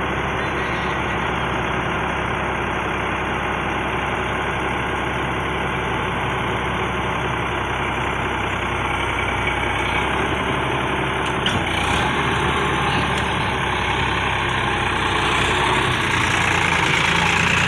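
Sonalika tractor's diesel engine running steadily while working the hydraulic tipper that raises the trailer to dump sand; the engine gets louder near the end.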